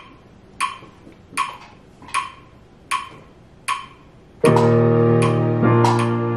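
Click track counting in at about 78 beats a minute, five even clicks, then the band backing track comes in about four and a half seconds in with sustained keyboard chords over bass.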